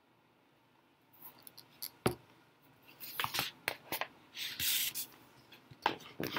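Pages of a hardcover picture book being handled and turned by hand, starting about a second in: paper rustles and small clicks, one sharp knock about two seconds in, and a page swishing over near the middle.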